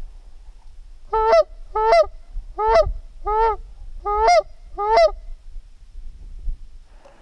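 Six loud goose honks in an even rhythm, about one every two-thirds of a second, each rising then dropping in pitch.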